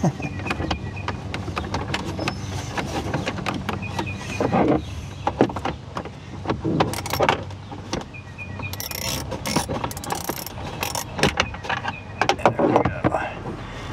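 Plastic dash trim of a 2016 Ford F-150 clicking, creaking and rattling as the stuck top panel of the center dash is pried and pulled against its retaining clips. Irregular sharp snaps come throughout, over a steady low hum.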